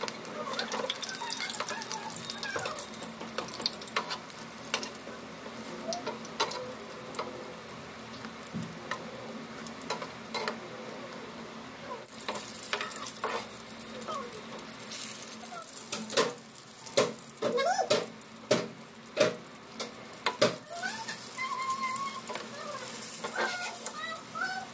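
Battered green chilli pakoras deep-frying in hot oil in a steel kadai: the oil sizzles steadily, louder from about halfway through. A metal slotted spoon scrapes and clinks against the pan as the pakoras are turned, with the sharpest knocks in the second half.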